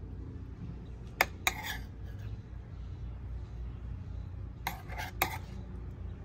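Kitchen utensils and dishes clinking: two sharp clinks about a second in, then three more near the end, over a low steady hum.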